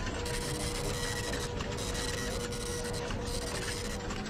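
Office printer running: a steady mechanical hum and rustle with a tone near 500 Hz, the high part of the noise dropping out briefly a few times.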